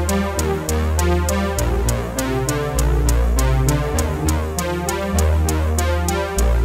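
Music with a steady beat: regular ticks about four a second over a deep bass line that changes note every second or so.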